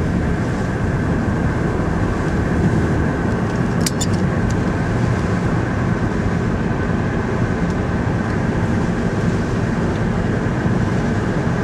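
Steady road and engine noise inside a moving car's cabin, with a couple of brief clicks about four seconds in.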